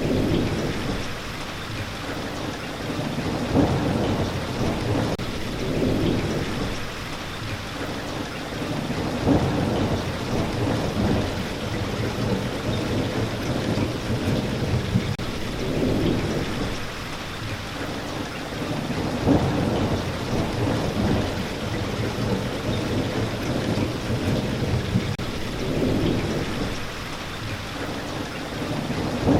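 Steady rain falling, with thunder rolling in low rumbles that swell and fade every few seconds.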